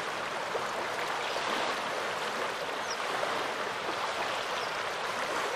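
Small Baltic Sea waves washing on a beach: a steady, unbroken rush of water.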